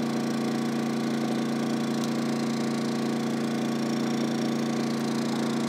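Generator engine running steadily with an even hum while it powers an electric fryer heating oil.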